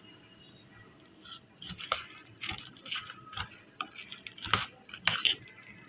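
Steel spoon stirring fried makhana (fox nuts) into yogurt in a stainless steel bowl, with irregular scrapes and clinks of the spoon against the bowl. It starts quiet, and the clinks come from about a second and a half in, the loudest near the end.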